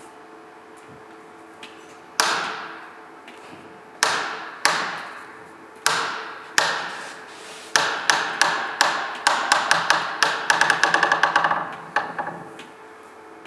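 A hammer striking a metal part of a car alternator, each blow ringing and dying away. A few spaced blows come first, then a quickening run of rapid taps that stops shortly before the end.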